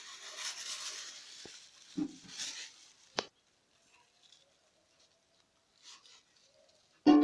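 A spoon or spatula stirring and scraping through thick cake batter in a bowl, with a few sharp knocks against the bowl, then a pause. A sudden loud sound comes near the end.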